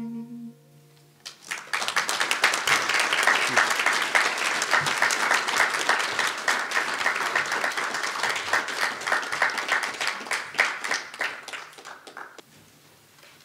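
The last held note of voice and acoustic guitar dies away, and about a second later the church congregation breaks into applause. The clapping is steady for several seconds and thins out toward the end.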